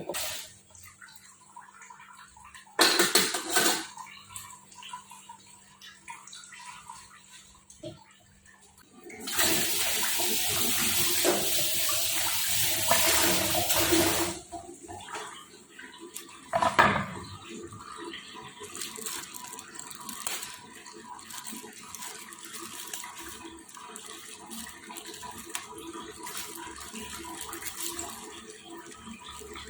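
Water running hard from a kitchen tap for about five seconds, amid knocks and clatter of kitchen handling.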